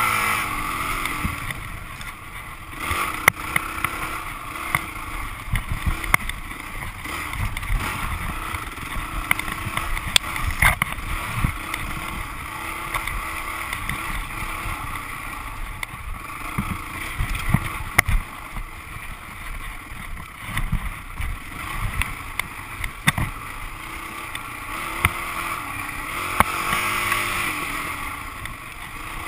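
Dirt bike engine running at low revs on a rocky trail, with frequent knocks and clatter from the bike working over rocks, and the engine rising briefly near the end.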